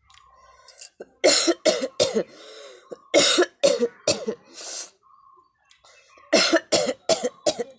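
A person coughing on purpose for a coughing challenge: three fits of four or five hard coughs each, with short pauses between them.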